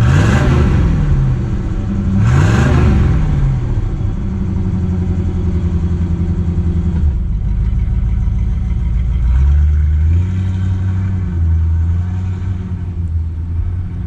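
Ford 260 cubic-inch V8 of a 1964½ Mustang blipped twice, revving up and dropping back each time, then running steadily. Its note shifts about nine and a half seconds in.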